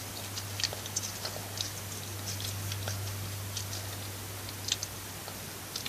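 Blu Tack slime being squished and stretched in the hands, giving scattered small sticky clicks and pops over a steady low hum.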